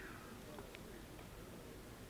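Quiet background with one faint click about three-quarters of a second in: shells being handled at the open breech of an over-under shotgun.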